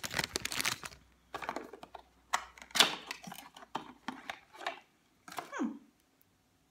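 A small cardboard perfume box being opened by hand and the glass bottle taken out: a rustle of packaging, then a run of separate clicks, taps and scrapes of cardboard and glass, ending with a short falling squeak.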